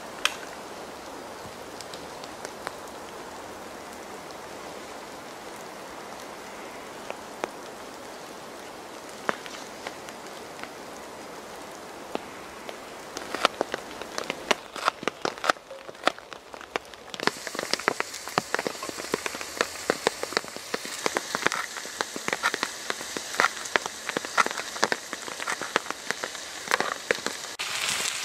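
Rain pattering: a steady hiss with scattered sharp drop ticks. From about halfway the ticks come thick and fast and the hiss grows brighter and louder.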